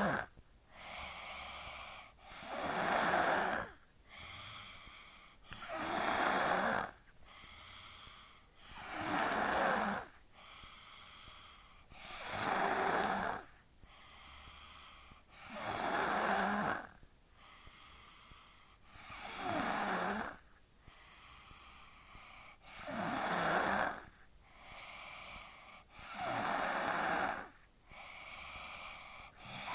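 A sleeping person snoring in a steady rhythm: a loud rasping snore about every three seconds, with a quieter breath between each.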